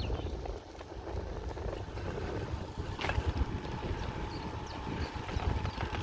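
Wind rushing over the microphone and tyre rumble of a road bike rolling along a forest road, with a single sharp click about halfway through.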